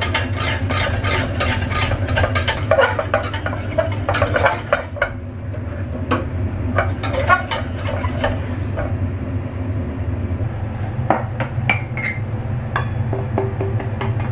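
A whisk stirring thick green tea batter in a stainless steel saucepan, with quick clicks and scrapes of the wires against the pan. The clicks come thick and fast for the first few seconds, then thin out. A steady low hum runs underneath.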